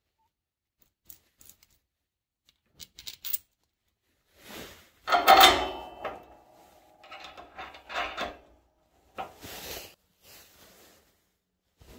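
Metal hardware being handled and fitted: a bolt, washer and blade-stop bracket clinking and scraping against the steel plow frame as the blade stop is bolted on. A few light clicks at first, the loudest clatter about five seconds in, then more short rattles.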